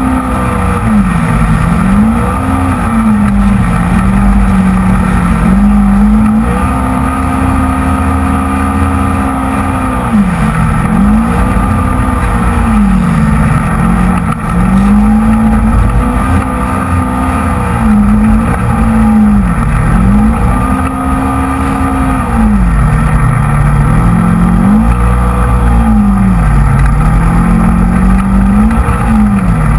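Polaris RZR XP 900 side-by-side's parallel-twin engine running hard, held at high revs, its pitch dropping and climbing back every few seconds as the throttle is lifted and reapplied over the dunes.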